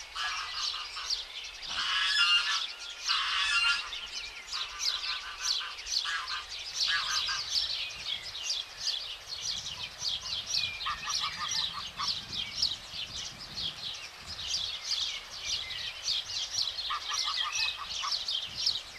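Domestic goslings peeping: a continuous string of short, high, falling peeps, several a second. Short bursts of lower, rapidly pulsed goose calls come in at a few points.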